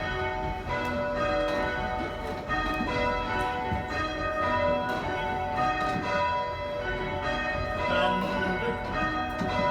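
Church bells rung full-circle by a band, each bell striking in turn in an even, steady succession with the tones ringing into each other. The conductor has just called them back from call changes, so they are ringing rounds.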